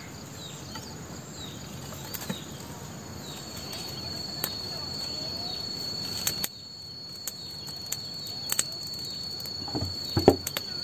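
Steady insect buzzing, crickets in the main, with a high continuous tone that joins about three seconds in and repeated short falling chirps. Occasional sharp clicks, and a louder clunk near the end as the lid of the black iron cooking pot is handled.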